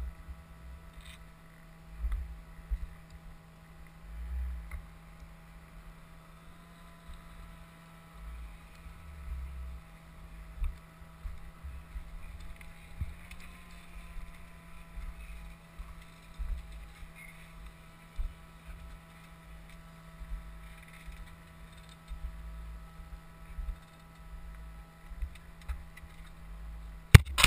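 Wind buffeting a helmet-mounted camera's microphone, an uneven low rumble that comes and goes over a steady low hum. A sharp knock near the end, from the camera being handled.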